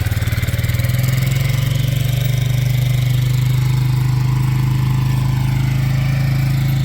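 Stihl MS170 two-stroke chainsaw running steadily at a constant speed.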